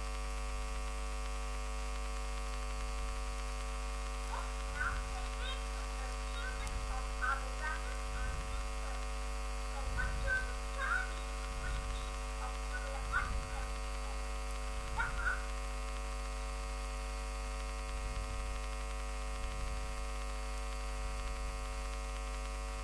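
Steady electrical mains hum, buzzy with many overtones, from the recording chain. A few faint, short, indistinct sounds come and go between about four and sixteen seconds in.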